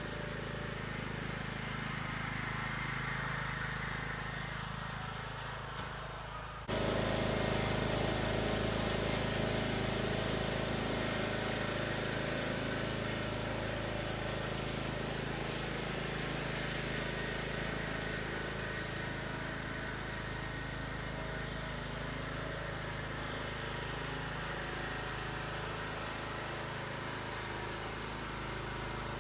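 Husqvarna YTH18542 riding lawn mower's 18.5-horsepower engine running steadily while the mower drives along. The sound jumps abruptly louder about seven seconds in, then holds steady.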